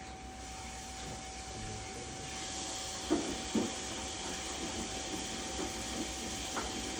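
Danube 20 kg washing machine running its cycle: a steady hiss that grows louder about two seconds in, with two short thumps soon after and a faint steady tone throughout.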